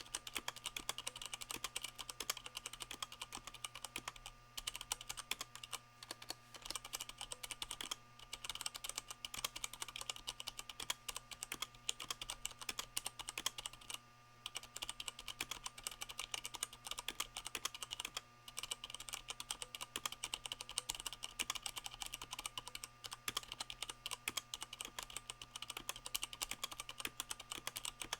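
Continuous fast typing on a Leopold FC660M mechanical keyboard with Cherry MX Brown switches, the keystrokes damped by O-rings on the keycaps, with brief pauses every few seconds.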